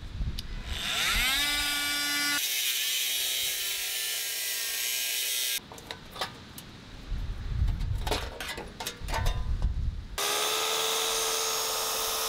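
Power tools working sheet copper from a hot water cylinder. A cordless oscillating multi-tool spins up about a second in and runs steadily. After that come scattered clicks and knocks of tin snips cutting the metal, and near the end a second power tool runs at a steady higher pitch.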